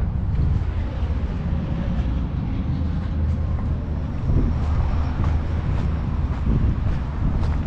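Wind buffeting the microphone outdoors: a steady low rumble with a noisy hiss above it, and a few faint clicks.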